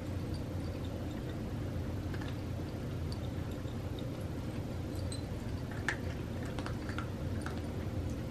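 Several cats crunching dry kibble: scattered small, crisp crunches, most of them in the second half, over a steady low hum.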